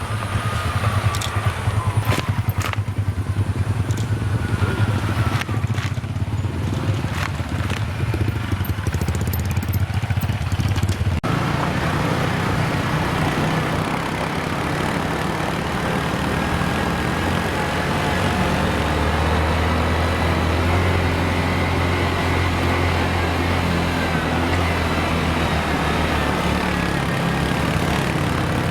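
Engine of road-works machinery running steadily, with scattered knocks and clanks in the first part. About eleven seconds in, it changes abruptly to a smoother, steady engine note.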